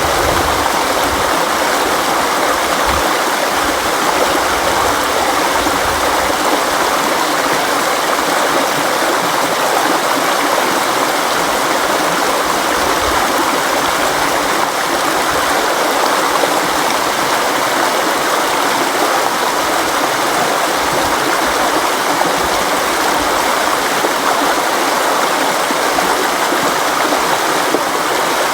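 River water flowing steadily over rocks, a continuous even rush.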